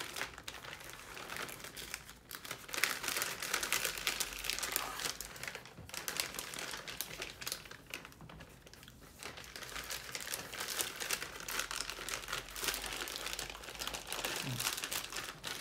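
Plastic and paper MRE packaging crinkling and rustling as it is handled: the plastic sleeve of a flameless ration heater and the pouches being worked by hand, in irregular crackly bursts.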